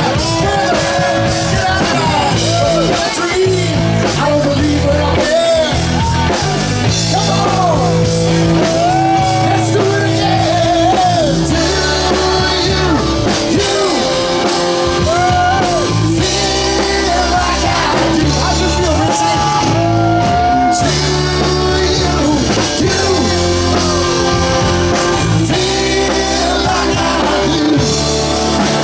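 Live rock band playing a song, a lead singer's voice over electric guitar, a stepping bass line and drums.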